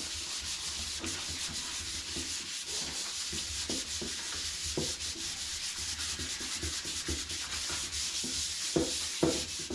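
Sandpaper rubbed by hand over a painted drawer in quick back-and-forth strokes, taking the white paint off.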